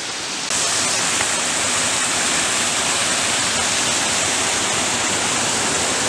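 Mountain stream rushing over rocks in small cascades, a steady rush of water that grows louder about half a second in.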